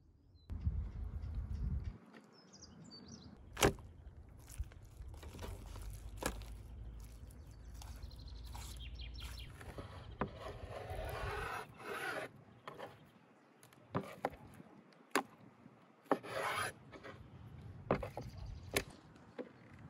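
Knife cutting lamb liver on a wooden cutting board: sharp, irregular taps of the blade striking the board, with a few longer slicing scrapes. A brief low rumble comes first.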